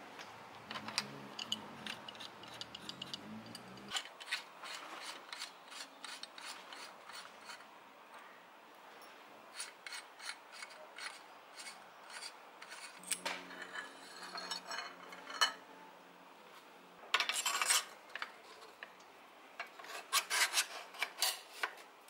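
Metal clicks and scraping as the threaded headset of a 1970s Motobecane Mirage Mixte is taken apart by hand: the locknut, washer and adjustable cup are unscrewed and lifted off the head tube. A louder scrape comes about three quarters of the way through, then a quick run of clicks.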